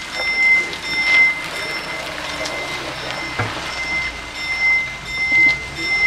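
Level crossing warning bells ringing on one high tone that swells and fades over and over, warning of an approaching train. A small car rumbles across the crossing close by, with a knock about three and a half seconds in.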